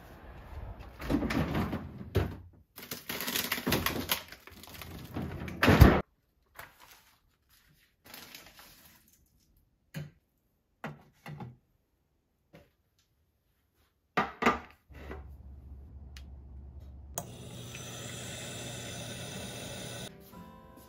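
Household handling sounds: rustling and clattering for the first six seconds, ending in a sharp knock, then scattered light knocks and taps with quiet between. About three seconds before the end, water runs steadily from a kitchen tap into a plastic watering can and stops just before the end.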